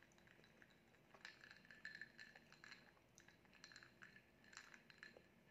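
Faint, irregular clicking and scraping of fingers against a clear cup as pieces of red velvet cake are picked out of it.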